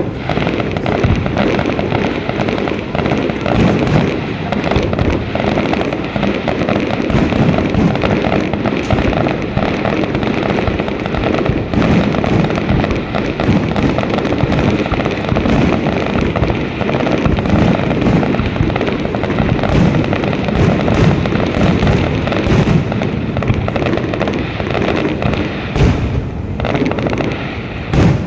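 Fireworks display in full barrage: many shell bursts overlapping one another with no pause, so the booms and bangs run together into a continuous, loud rumble.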